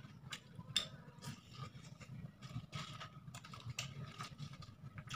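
Crisp kerupuk crackers crunching in short, irregular crackles, with the paper food wrapper rustling, as rice is mixed by hand.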